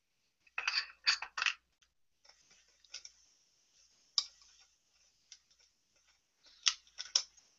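Sparse, sharp clicks and ticks over near silence, with a short cluster of brief clattery bursts about a second in and a few single clicks later on.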